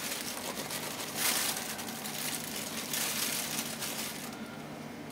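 Plastic bag of rye flour crinkling as it is handled, in several surges that stop about four seconds in.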